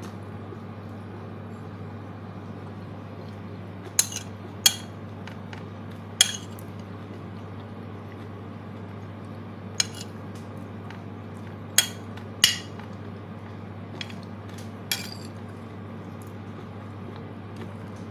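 Metal spoon clinking and scraping against a ceramic plate while scooping rice, in about eight scattered sharp clinks. A steady low hum runs underneath.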